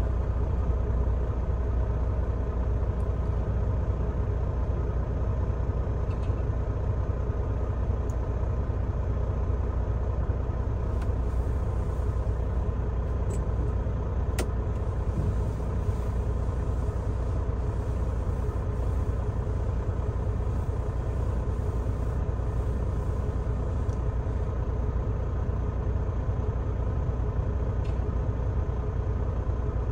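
Semi-truck diesel engine idling steadily, with one brief sharp click about halfway through.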